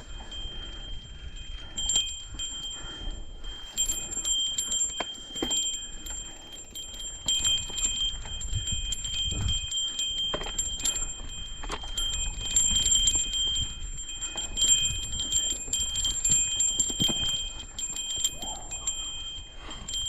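Mountain bike rattling and clicking over rough trail, with a steady high-pitched ringing tone that keeps breaking off and coming back.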